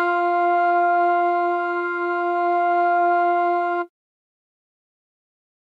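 A single sustained note from the Arturia OP-Xa V software synthesizer, a steady tone rich in overtones, held for about four seconds and then cut off abruptly.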